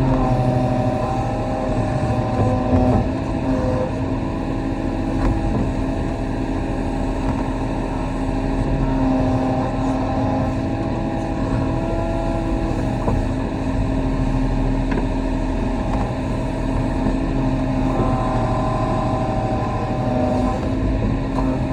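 Kobelco SK35 excavator's diesel engine running steadily under work, a constant hum with whining tones that shift in pitch a few times as the hydraulics are worked.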